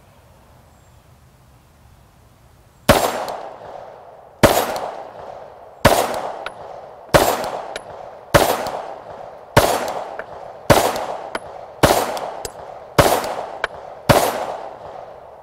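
SIG Sauer M18 9mm pistol fired ten times at a slow, even pace, starting about three seconds in. The shots come roughly every second and a half, each sharp crack trailing off in a short echo.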